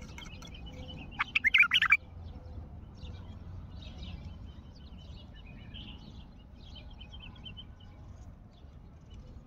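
Bulbul singing: one loud, quick phrase of notes a little over a second in, then softer scattered chirps.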